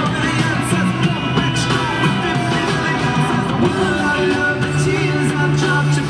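Loud rock music with singing, played over an ice-hockey arena's sound system.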